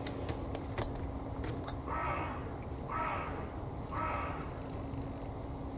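A bird calling three times, about a second apart, each call short and harsh. A few faint clicks come before the calls.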